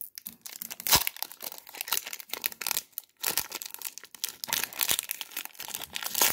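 Foil Pokémon TCG booster pack wrapper crinkling and crackling in the hands as it is pulled at to tear it open, with sharp loud crackles about a second in and near the end; the pack resists opening.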